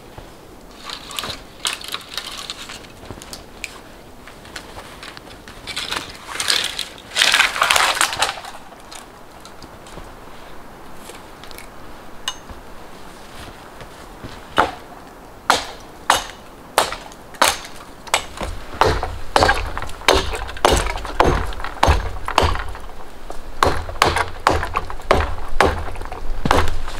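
Dry branches being broken, with crackling and snapping, then a hatchet chopping wood in a steady run of sharp strikes, about one to two a second, from about halfway through.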